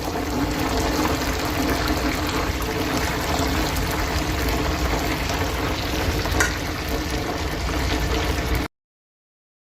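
Schnitzel frying in hot oil: a steady sizzle, with a single click about six seconds in, cutting off suddenly near the end.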